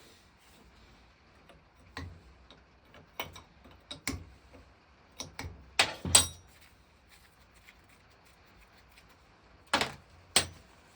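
Scattered sharp clicks and knocks of hard objects being handled. The loudest come as two close pairs, one about six seconds in and one near the end.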